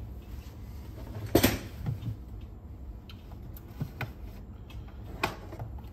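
Small objects handled on a workbench: a few knocks and clicks, the loudest about a second and a half in, over a steady low hum.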